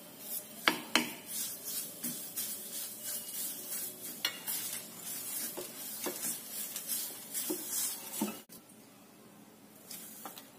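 Wooden spatula stirring and scraping grated garlic around a kadai, a string of short scrapes and knocks against the pan over a light sizzle, with two sharp knocks about a second in. The stirring stops abruptly near the end.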